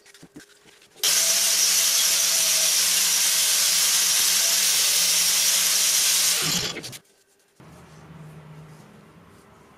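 Angle grinder with an abrasive disc grinding a steel hammer head clamped in a vise. It starts suddenly about a second in, runs steadily with a loud hiss, and winds down with a falling whine about six and a half seconds in.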